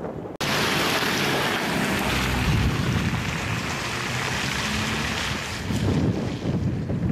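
Wind buffeting the microphone in a steady hiss over a low rumble, the sound changing suddenly at an edit just after the start.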